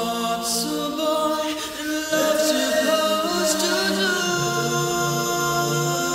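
Background music: slow choir-like singing in long held notes.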